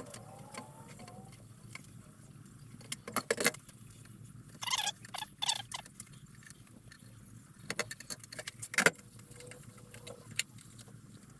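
Stainless steel kitchen sink and its metal mounting clips being handled on a stone benchtop: scattered light metallic clinks and rattles, with a sharper knock just under nine seconds in.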